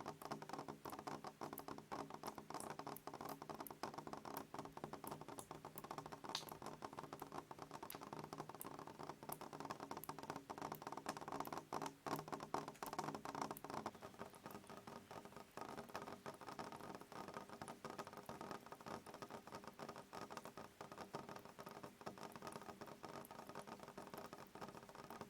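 Rain pattering: a dense, irregular patter of small drop ticks, with a faint steady hum underneath that shifts about halfway through.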